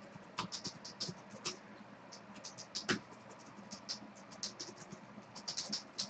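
Faint, irregular light clicks and ticks, several a second, with a slightly stronger one about three seconds in, over a faint steady hum.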